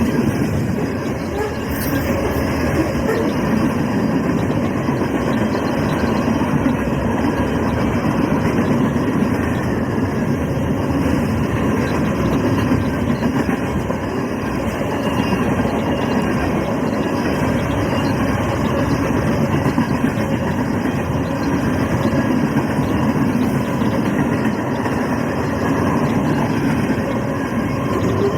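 CSX freight train's cars rolling past, a steady rumble and clatter of steel wheels on the rails.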